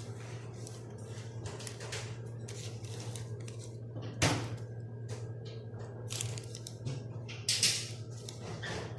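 A spoon clinking and scraping in a bowl of dry ingredients, with one sharp knock about four seconds in and a louder scrape near the end, over a steady low electrical hum.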